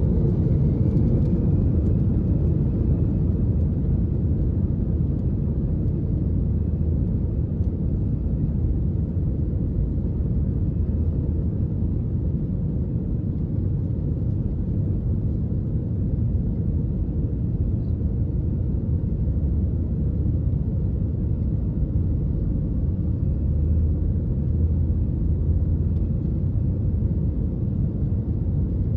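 Steady low rumble heard inside the cabin of a Lufthansa Airbus A320-200: its jet engines running and the airliner rolling along the airport pavement on the ground.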